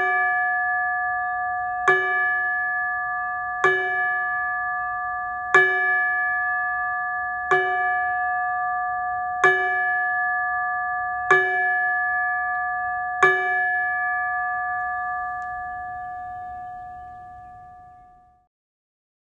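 A single chime struck with a mallet eight times, about every two seconds, each stroke ringing the same tone. After the last stroke the ring fades away over several seconds.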